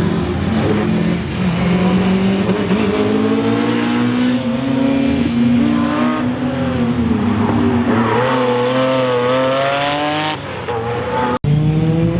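Rally car engine at full throttle, its pitch climbing through each gear and dropping at the shifts and lifts, several times over. It breaks off sharply near the end and an engine picks up again straight after.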